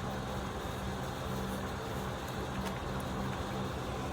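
Steady low mechanical hum with a few constant tones, like a running motor or engine.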